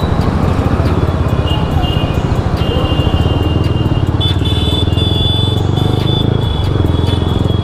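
Motorcycle engine running steadily while riding through city traffic, with a thin, steady high tone joining from about halfway through.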